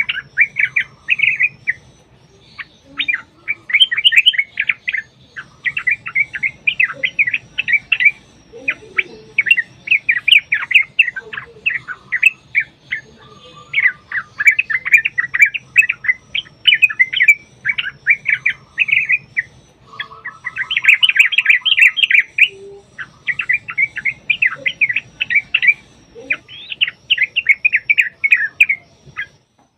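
Yellow-vented bulbul (trucukan) singing: loud, rapid chattering phrases in bursts of a second or two, one after another with short breaks, stopping just before the end.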